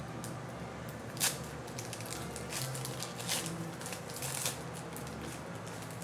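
A 2009 Donruss Classics trading-card pack wrapper being torn open and crinkled, in several short crackly bursts, the sharpest about a second in.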